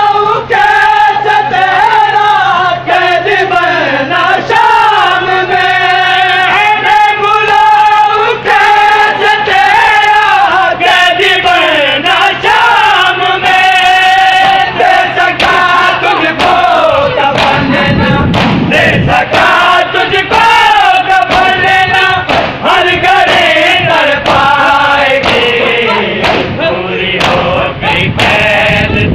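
A crowd of men chanting an Urdu noha, a Muharram mourning lament, in loud unison, the refrain sung over and over. Sharp slaps of matam chest-beating run through the chant.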